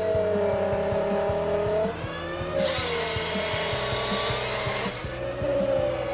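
A forestry harvester's saw cutting through a log, a loud rushing whine that rises in pitch for about two seconds in the middle, over background music with a steady beat.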